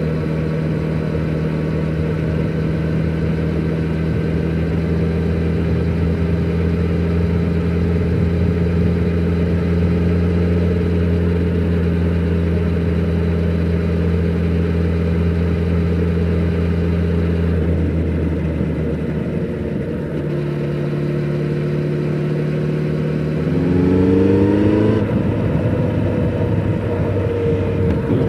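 A 2020 Kawasaki Z900RS's inline-four engine running through its stock exhaust while riding, holding steady revs for most of the stretch. About two-thirds of the way through the pitch drops, and near the end the engine revs up with a rising tone, louder, before settling again.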